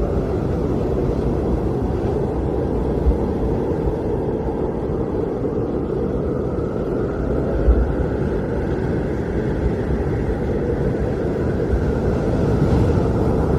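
Blizzard wind blowing steadily, a deep rumble with a faint howl that slowly rises and falls in pitch.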